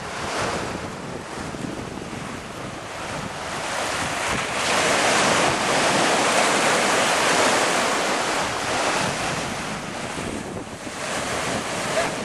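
Ocean surf breaking and washing up the beach, swelling to its loudest in the middle and easing off toward the end, with wind buffeting the microphone.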